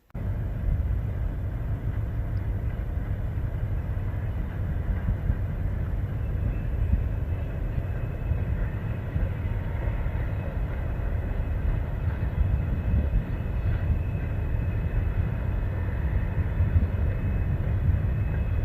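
Wind buffeting the microphone outdoors: a steady, uneven low rumble with a fainter rushing hiss above it.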